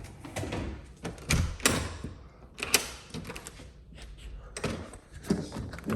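Doors being opened and shut: several separate knocks and clacks, with handling noise in between.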